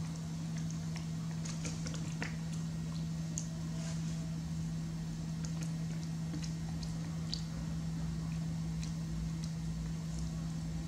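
A steady low hum, with faint scattered clicks and small mouth sounds from a young macaque eating and handling a plastic spoon over a plastic bowl.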